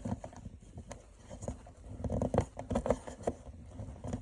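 Irregular light clicks and taps of small parts being handled on a workbench.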